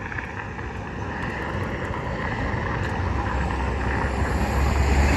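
A road vehicle approaching; its engine and tyre rumble grow steadily louder toward the end.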